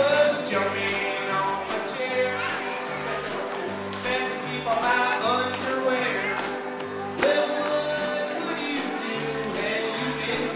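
A live band playing an upbeat song: a man singing into a microphone over guitar, electric bass and a drum kit, with a steady beat and a repeating bass line.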